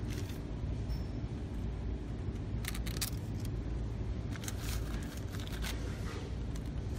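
Steady low workshop hum with a few light clicks and rustles of metal parts and plastic parts bags being handled over the engine.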